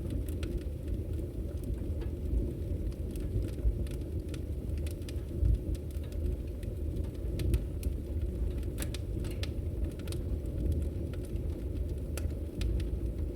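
Fire in a fireplace crackling: scattered sharp snaps and pops over a steady low rumble.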